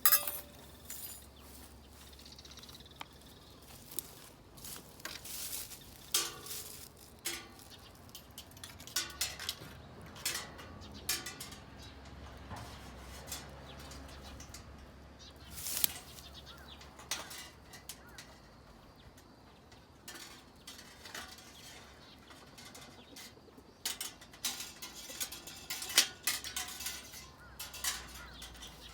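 Irregular clinks and knocks of metal being handled and struck during work on a metal incinerator. The loudest come at the very start, about sixteen seconds in, and around twenty-six seconds in.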